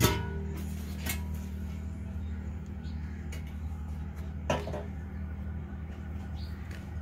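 Steady low hum of a motor-driven potter's wheel spinning while green bands are brushed onto a clay pot lid, with a few sharp knocks, the loudest at the very start and another about four and a half seconds in.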